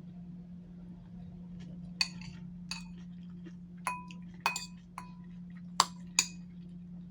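Utensils clinking against a dish while eating, about seven sharp ringing clinks in the second half, over a steady low hum.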